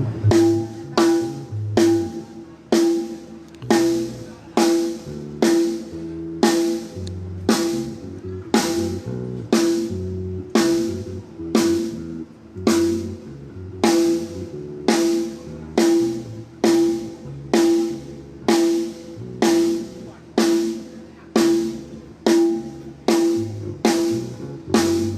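A drum struck in a steady, even beat, about three hits every two seconds, each hit ringing with a clear pitch, over a low bass line that changes notes.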